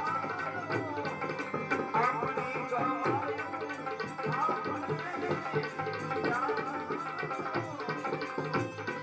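Indian music led by tabla drumming, with a gliding melody line over the steady drum strokes.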